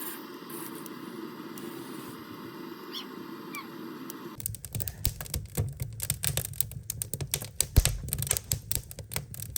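Wood fire burning in a wood stove: a steady low rush, then about four seconds in, dense irregular crackling and popping as the wood burns.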